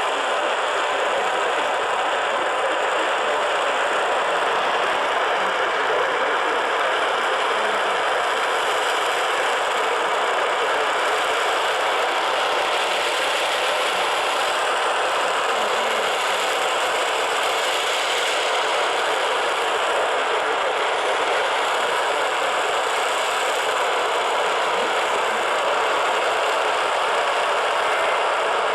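Steady radio static: an even hiss from a receiver tuned to an alert channel while nothing is being broadcast, unchanging throughout.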